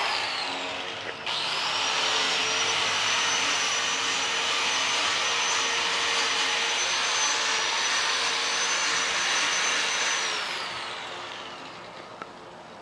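A power tool's motor running at speed with a steady high whine. It dips and quickly speeds up again about a second in, then winds down over the last couple of seconds.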